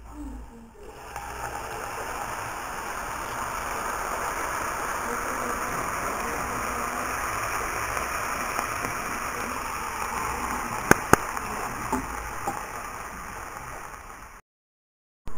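Noodle broth poured in a steady stream from a pot into a frying pan of sautéed celery, bacon and chicken, a continuous splashing pour. Two sharp clicks come about eleven seconds in, and the sound cuts off suddenly near the end.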